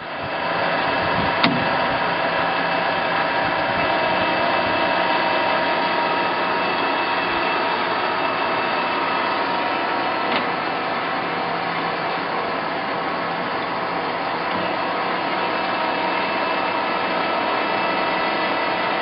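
Acraturn LS-400 engine lathe running, a steady mechanical hum with several steady whining tones. A sharp click comes about a second and a half in, and a fainter one about ten seconds in.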